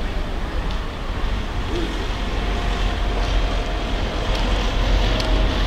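Steady outdoor rumble of wind buffeting the microphone over the noise of distant vehicles, with a faint steady tone coming in about two seconds in.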